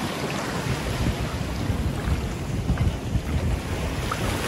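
Wind gusting on the microphone over the steady rush of choppy river water breaking along the shore.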